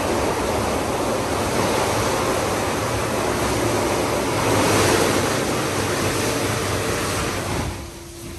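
Water spraying onto a car in an Istobal M9+ rollover car wash during its wash cycle with wheel cleaning, side high-pressure and underbody wash: a loud, steady rush of spray. It cuts off near the end, leaving a steady machine hum.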